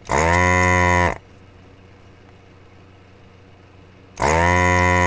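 A loud, steady, buzzy tone with an unchanging pitch lasting about a second, played twice about four seconds apart in identical copies: a sound effect played back, moo-like.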